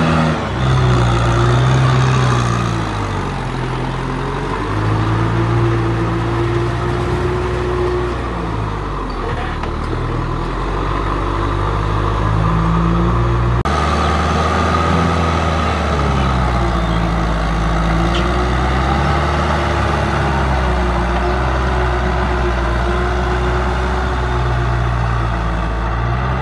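Kubota M6040SU tractor's four-cylinder diesel engine running under load while it pulls a rotary cultivator through wet paddy soil, its pitch rising and falling every few seconds as the load changes. The sound changes abruptly about halfway through.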